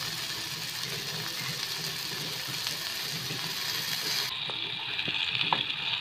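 Hot dogs sizzling as they fry in a pan, with a few light clicks near the end as a spatula turns them.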